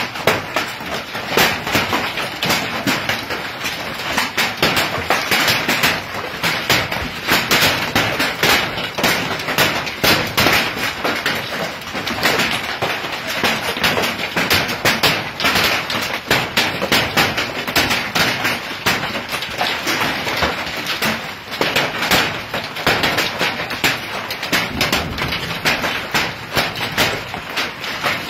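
Hailstorm: hailstones pelting down hard, a dense, unbroken clatter of many sharp impacts on hard surfaces.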